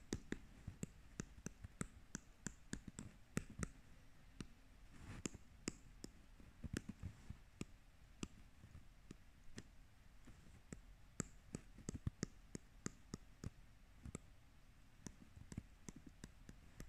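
Faint, irregular clicks and taps of an Apple Pencil's plastic tip striking and sliding on an iPad's glass screen as short pushing strokes are made.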